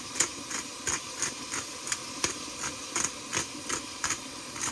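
Pepper grinder being worked over a pot, giving an even run of sharp grinding clicks, about three a second.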